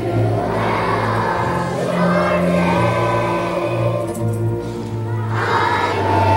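Children's choir singing a song together, holding sustained notes.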